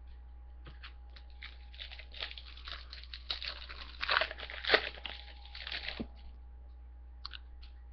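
A foil trading-card pack wrapper being torn open and crinkled by hand. It makes an irregular run of crackles for about four seconds, loudest about three-quarters of the way through, and stops about six seconds in.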